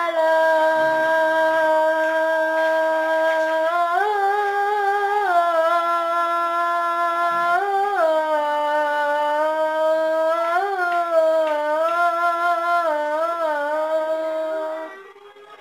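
A boy's voice chanting the adhan, the Islamic call to prayer: one long held note with several melismatic turns and waverings in pitch, stopping near the end.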